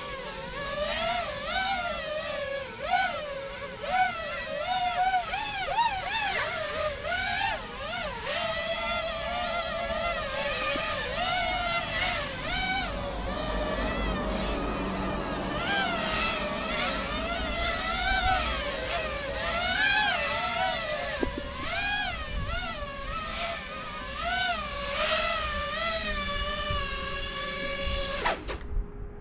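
Five-inch FPV quadcopter's motors and propellers whining, the pitch swooping up and down constantly with quick throttle changes through rapid roll and pitch moves. The whine cuts off suddenly near the end as the quad sets down.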